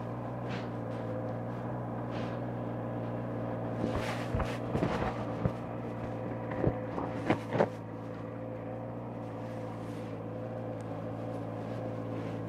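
Honda CBR650R's inline-four engine idling steadily at one pitch, with a few sharp clicks and knocks between about four and eight seconds in.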